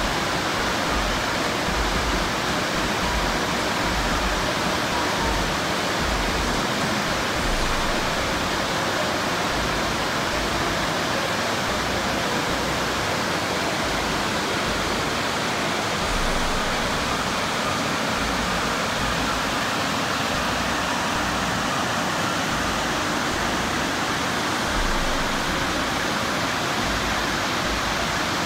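Waterfall: white water pouring down a rocky cascade, a steady, dense rushing noise.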